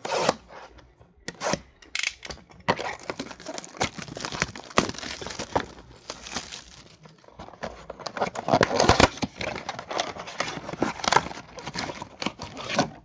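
Clear plastic wrap crinkling and tearing as it is stripped off a sealed 2015 Panini Contenders football card box, with many sharp crackles. It starts in a few separate rips and becomes near-continuous crinkling after about three seconds.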